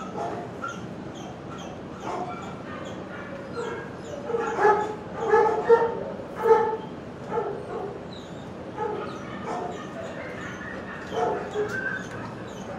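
Many shelter dogs barking and yipping from their kennels: short barks overlap without pause, and they come thickest and loudest around five to seven seconds in.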